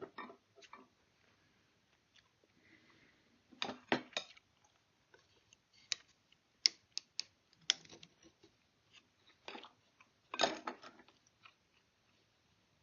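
Irregular small clicks, taps and short scrapes of hand tools and a metal part being worked into a wooden rifle stock while inletting it.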